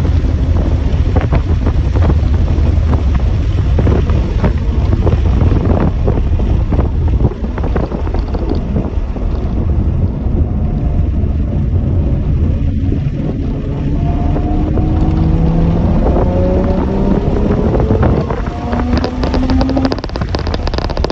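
Wind buffeting the microphone over a running engine. About halfway through, the engine note climbs steadily for several seconds, drops, and starts climbing again near the end.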